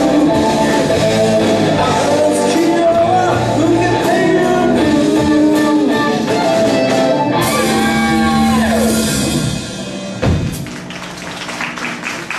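A live band with a singer, guitar and drums plays the closing bars of a song, with a long falling slide near the end. It stops on a final hit about ten seconds in, and audience clapping starts in a large hall.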